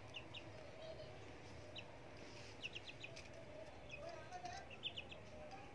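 Faint bird chirping: short high chirps in quick runs of two to four, repeating every second or so.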